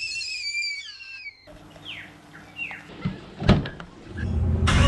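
A wavering whistle-like call that falls away over the first second and a half. Then a few short falling bird chirps, and a car door handle is pulled: the latch clicks and knocks open about three and a half seconds in. Near the end a loud rush of noise rises as the door swings open.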